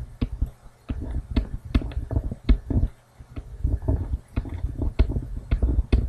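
Stylus tapping and scraping on a tablet during handwriting: a quick, irregular run of clicks with low thuds, easing briefly about halfway through.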